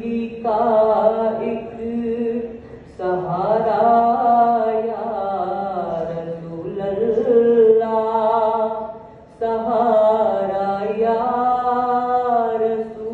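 A boy's solo voice singing a naat, an Urdu devotional poem, into a microphone, with no instruments. He sings in long held, bending phrases and pauses briefly for breath twice.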